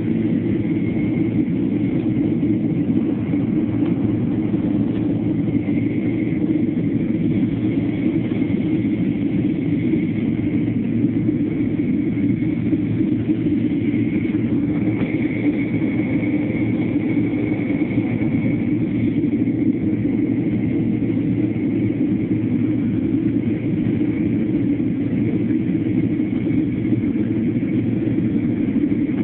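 Steady rumble of an airliner's jet engines heard from inside the passenger cabin, with a faint steady whine above it.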